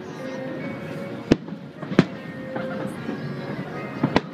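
Aerial firework shells bursting: four sharp bangs, one about a second in, one at two seconds, and two in quick succession near the end.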